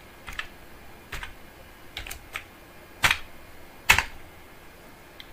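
Keystrokes on a computer keyboard typing a short word: about seven separate clicks at an uneven pace, the two loudest about three and four seconds in.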